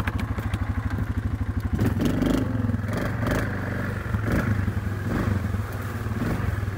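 2007 Yamaha Grizzly 450 ATV's single-cylinder four-stroke engine running at an even, pulsing low beat, then picking up and pulling harder about two seconds in as the quad rides through mud. Scattered clattering comes over the engine.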